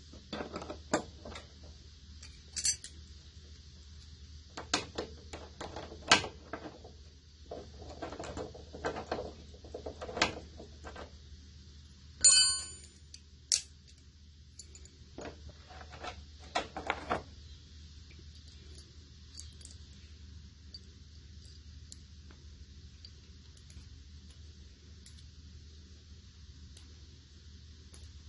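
Wrench and pliers clicking and clanking on metal as bolts are undone, with one ringing metal clink about twelve seconds in. After about seventeen seconds only a faint steady hum is left.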